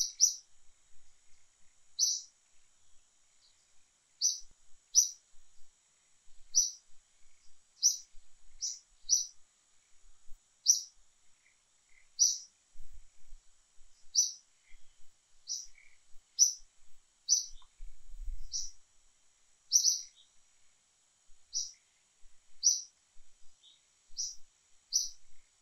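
A bird repeating a short, high, sharp chirp at irregular intervals, roughly once a second, over a faint steady high-pitched drone.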